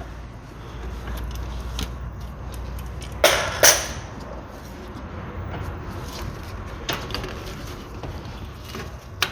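Tools working on a car driveshaft's gearbox flange bolts: a low hum, then two short sharp bursts about three seconds in, followed by a few faint clicks.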